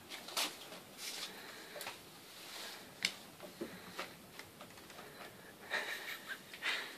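A Jack Russell Terrier puppy play-fighting with a cat: irregular breathy huffs and snorts with scuffling, a sharp knock about three seconds in and a louder cluster of huffs near the end.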